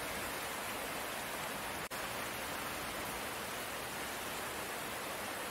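Steady rain falling, an even hiss. It cuts out for an instant about two seconds in.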